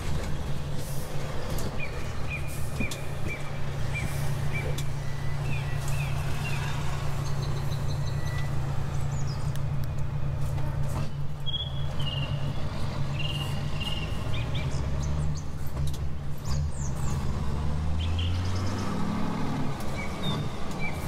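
Truck engine sound from a radio-controlled model truck, running steadily and rising in pitch near the end. Songbirds chirp repeatedly over it.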